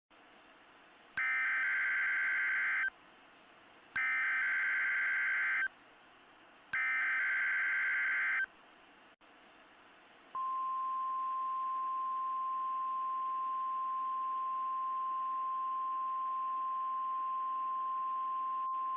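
NOAA Weather Radio emergency alert tones. First come three short bursts of digital SAME header data, each under two seconds with short gaps between. After a brief pause, the steady 1050 Hz weather radio warning alarm tone begins about ten seconds in and holds without a break.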